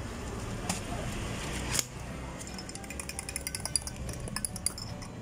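Background music, with a sharp clink about two seconds in followed by a quick run of light glass clinks lasting a couple of seconds.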